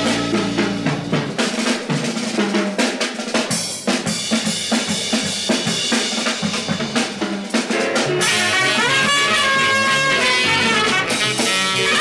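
Jazz drum kit playing alone in a bebop septet recording: snare, rimshots, bass drum and cymbals in a drum break that follows a full-band phrase ending about a second and a half in. From about eight seconds the horns come back in with bass and piano under them.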